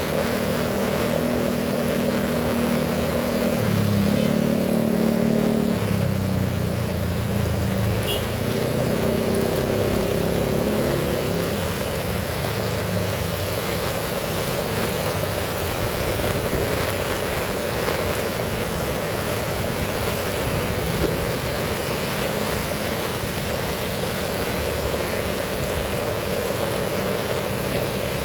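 Heavy rain pouring steadily. A low engine hum runs under it for the first twelve seconds or so, shifting pitch a few times before it fades.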